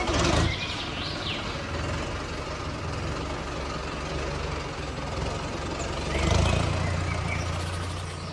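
Toy tractor's electronic engine sound running steadily, swelling louder at the start and again about six seconds in, with a few short bird chirps over it.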